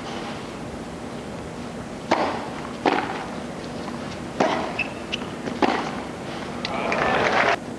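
Tennis rally on a hard court: four racket strikes on the ball, each about a second apart. Crowd noise swells afterwards and cuts off suddenly near the end.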